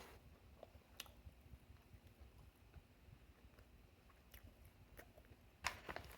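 Quiet chewing of a bite of breaded chicken sandwich, with a few faint mouth clicks, the loudest shortly before the end.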